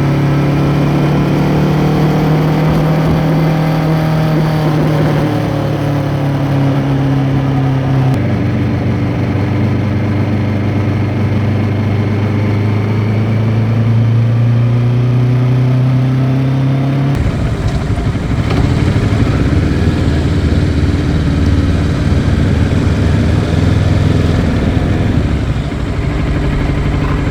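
Kawasaki Ninja 650 parallel-twin engine through an Arrow X-Kone exhaust with its dB killer fitted, running under way. The engine note drops at gear changes and climbs again as the bike accelerates. About two-thirds of the way in it becomes rougher and louder.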